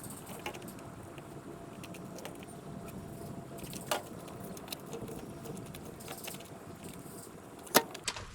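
Steady work-site background noise with scattered light clicks and clinks, a sharper click about halfway, and a loud sharp knock near the end.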